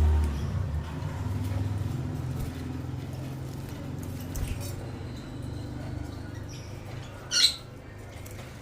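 African lovebirds chirping: a few faint high chirps, then one short, loud, shrill chirp about seven seconds in. A low rumble runs through the first couple of seconds.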